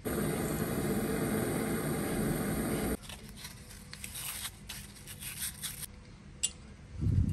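A loud steady rushing noise for about three seconds that cuts off abruptly, then irregular scratchy rubbing strokes of sandpaper on a copper pipe stub, with a sharp click and a low knock near the end.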